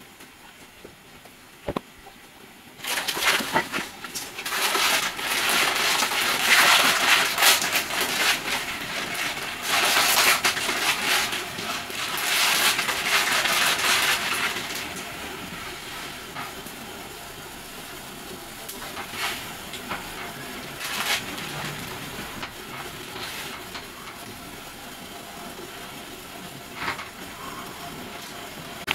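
Plastic instant-noodle packet crinkling and rustling loudly for about twelve seconds as it is opened and the noodle block pulled out. The packet sounds over the steady hiss of a portable gas stove heating a pot. After that the hiss carries on alone, broken by a few light clicks.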